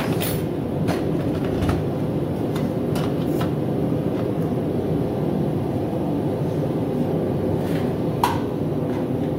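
Propane forge burner running with a steady roar, with a few light knocks and clanks of tools and metal.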